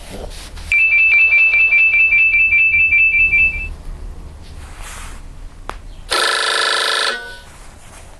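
Nokia 6124 classic mobile phone playing ringtones through its speaker. First comes a fast, high electronic beeping that lasts about three seconds. After a pause, a louder, fuller tone plays for about a second and cuts off suddenly.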